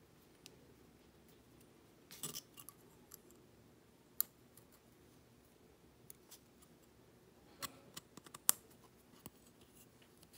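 Faint handling sounds of small electronic components: scattered sharp little clicks and scratches as their thin wire leads are bent by hand and pushed through the holes of a bare circuit board.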